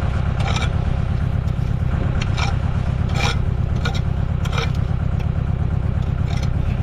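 Concrete blocks scraping and knocking as they are set into place, six or seven short strokes, over the steady low hum of an idling engine.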